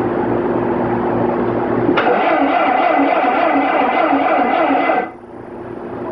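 Machinery on an engine test rig running with a steady hum. About two seconds in it switches abruptly to a louder, rhythmic pulsing, which cuts off suddenly near the end, as if switched off.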